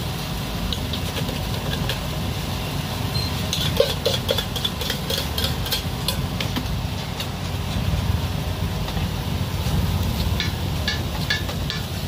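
Steady low engine rumble, with bursts of short clinks and clatter about four seconds in and again near the end.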